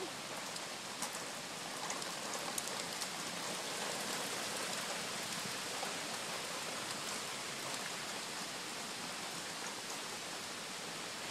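Heavy rain falling on a concrete patio: a steady hiss with scattered taps of single drops.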